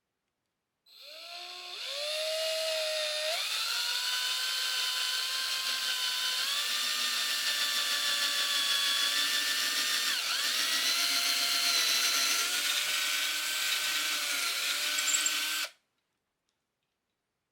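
Black+Decker 20V MAX cordless drill running for about fifteen seconds, its whine rising in pitch in a few steps as it speeds up, briefly dipping around ten seconds in as it bogs under load, then cutting off suddenly near the end.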